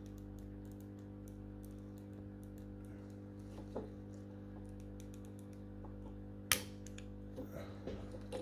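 Small plastic clicks and taps from the Anki Vector robot's parts as they are wiggled loose by hand, with one sharper click about six and a half seconds in, over a steady background hum.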